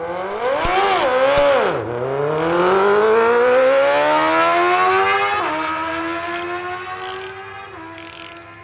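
A vehicle engine blipped twice, then accelerating hard with its pitch climbing, dropping suddenly at an upshift about halfway through and again near the end. Short bursts of high hiss come and go over it.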